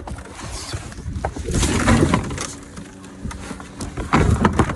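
Rummaging through dumpster contents: irregular knocks, clatter and rustling as items are shifted and handled. It is loudest about two seconds in and again near the end.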